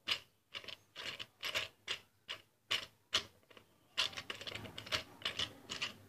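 A puller's threaded screw being turned with a wrench to pull apart a ceiling fan motor's housing. It makes a run of sharp metal clicks at an uneven pace, about two or three a second.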